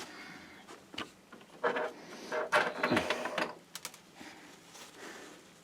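Clicks, taps and rustling of power-supply cables and parts being handled inside a computer case, with a short muttered, straining voice in the middle.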